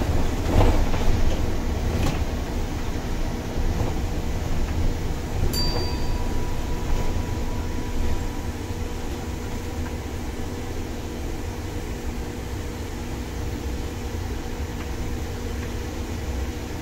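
Cabin noise of a MAN Lion's City articulated bus with a biogas engine under way: a steady low engine and road rumble. A sharp click about five seconds in is followed by a thin tone lasting a couple of seconds, and the rumble eases a little in the second half.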